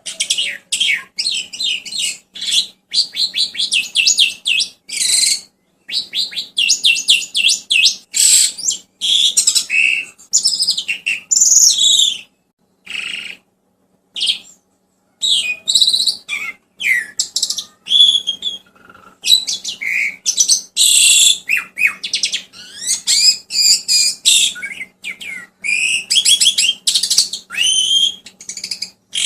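Songbird tutor recording ('masteran') of the kind played to train young starlings: fast chattering trills, rattles and sharp whistles in quick phrases, with a few short pauses around the middle.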